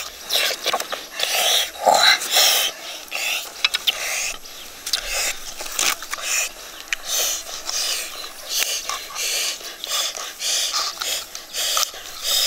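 A person eating noisily: irregular wet chewing and smacking sounds, two or three a second.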